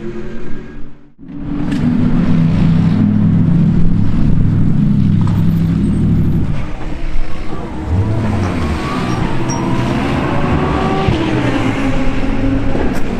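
GT race car engines at racing speed on track. About a second in the sound drops out briefly, then a car's engine comes in loud, and from about eight seconds in its pitch rises as it accelerates.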